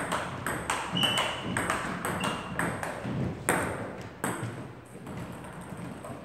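Table tennis rally: the ball clicking off the paddles and the table about three times a second, stopping about four seconds in. Two short high squeaks sound during the rally.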